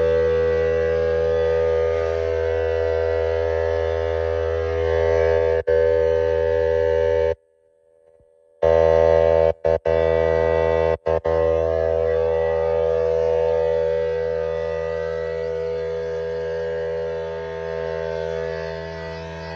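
A machine running with a steady, unchanging pitched hum. It cuts out abruptly for about a second partway through, then drops out twice more very briefly.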